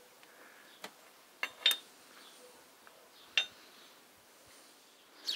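A few light metallic clinks as a steel gear-shift fork and a vernier caliper are handled against the open gearbox of a U445 tractor. There are about four short clinks, the loudest around a second and a half in.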